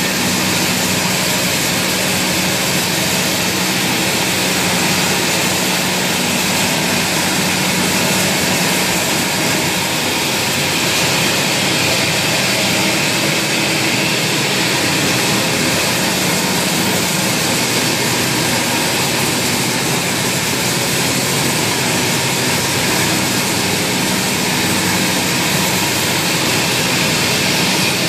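An automatic continuous sugar-coated popcorn machine running: steady machine noise with a low, even hum.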